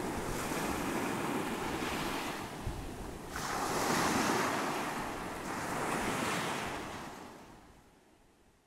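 Waves washing in: a steady rushing noise that swells in two slow surges, then fades out near the end.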